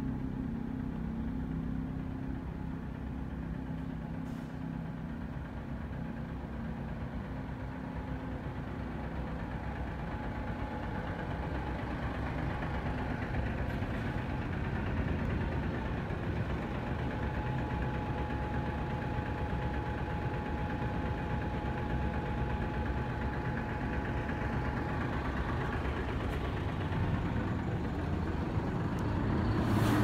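A vehicle engine idling steadily close by, growing louder near the end.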